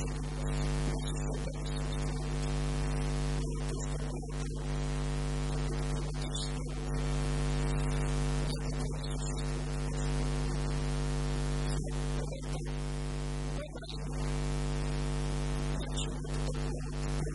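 Steady electrical mains hum with a stack of even overtones, under a constant hiss of static.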